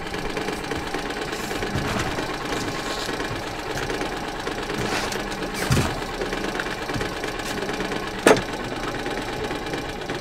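Outboard motor running steadily at trolling speed, with a sharp knock about eight seconds in.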